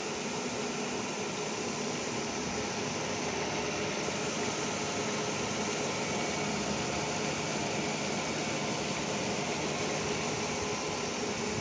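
Roll grinding machine running steadily as its wheel grinds a corrugated steel roll under coolant: an even hiss with a faint steady hum beneath it.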